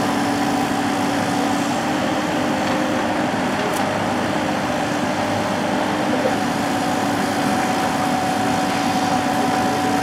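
Diesel engines and hydraulics of forestry machines at work, a Cat mini excavator with a grapple and a log forwarder, running steadily: a constant engine drone with an even hum held over it.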